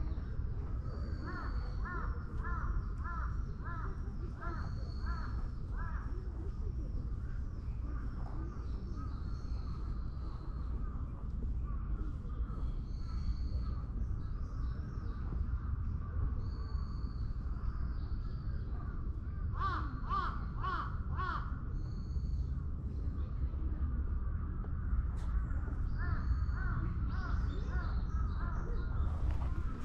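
Crows cawing in three runs of several caws each: near the start, about two-thirds through, and near the end. High chirps of small birds run throughout, over a steady low background rumble.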